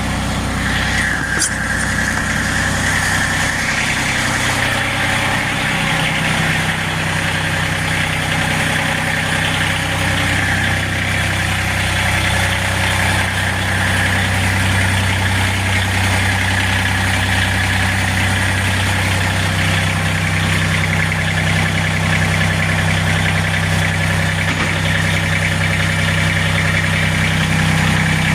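Small tractor's engine running steadily at idle, with a steady high whine above it from about a second in.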